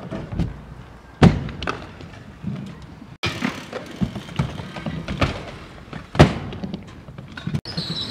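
Freestyle scooter riding a skatepark ramp: a run of sharp thuds and clatters as the wheels and deck hit the ramp, the two loudest landings about a second in and about six seconds in. The sound breaks off abruptly twice.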